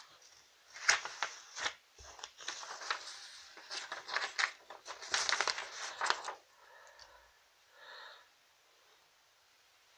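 Close, irregular crinkling and rustling handling noise in quick bursts for about five seconds, then a short faint hum about eight seconds in.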